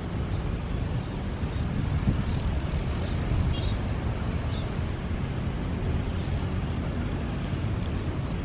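Aircraft engines running, a steady low rumble.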